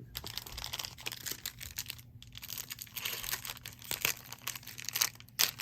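Wrapper of a trading-card pack crinkling and tearing as it is opened by hand, with a dense run of crackles and a few louder rips near the end.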